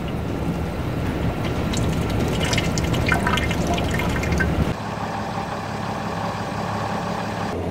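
Fuel draining from the Cessna Caravan's EPA can into a clear plastic fuel sampler tube, trickling and splashing with a few small clicks. About two-thirds through, it gives way to a steady low hum.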